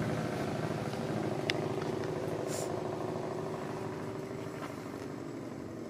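A distant engine running with a steady low hum that slowly fades away.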